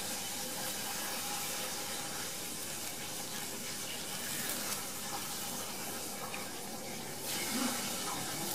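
Clear plastic wrap crinkling and rustling as hands peel and unwind it from a dog's muzzle, a steady hissing crackle.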